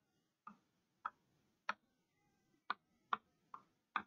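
Chalk tapping on a chalkboard while words are written: about seven faint, sharp taps, irregularly spaced.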